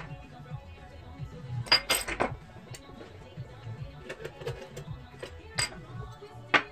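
Several sharp clinks and clacks of small metal and plastic LED-bulb parts and hand tools being handled and set down on a desk, a quick cluster of them a little under two seconds in and single ones later, over background music.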